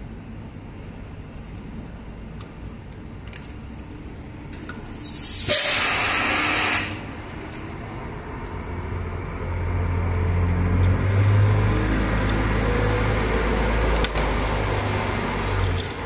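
A loud blast of hissing compressed air lasting about a second and a half, then a steady low rumble of a heavy vehicle engine running for the second half, stopping just before the end.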